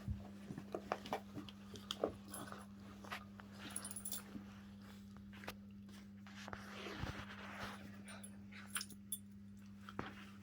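A Jack Russell terrier and a Rottweiler puppy playing tug of war: irregular scuffling and short knocks with dog noises, over a steady low hum.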